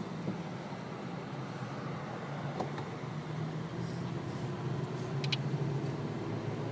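Steady engine and road hum inside the cabin of a moving car, with a brief high click about five seconds in.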